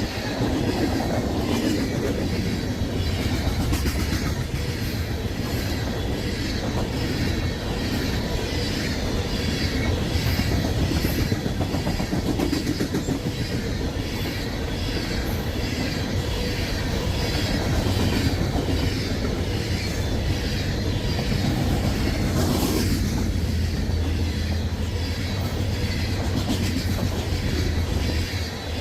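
Freight train cars, which look to be loaded with coal, rolling past at close range: a steady loud rumble with the wheels clicking in a regular rhythm over the rail joints.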